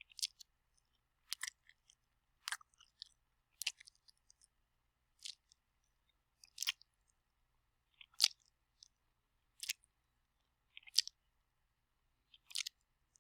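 Wet mouth sounds made on purpose: about ten short, sharp smacks, roughly one every second and a half, some of them doubled.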